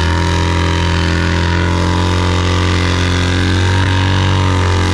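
Motorcycle engine held at steady high revs during a burnout, the rear tyre spinning and smoking on the ramp. The loud, even engine note cuts off suddenly near the end.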